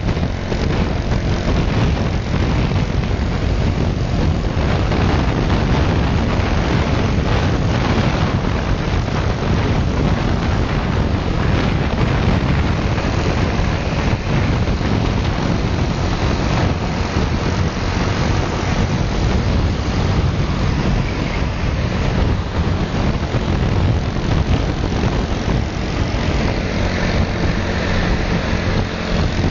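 Steady riding noise from a moving motorcycle: engine running and wind rushing over the microphone, with other motorcycles' engines and road noise around it.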